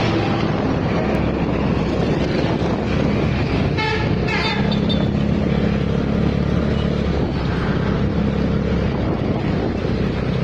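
Bus engine running amid road traffic. About four seconds in, a multi-tone telolet bus horn gives a short, rapidly warbling blast.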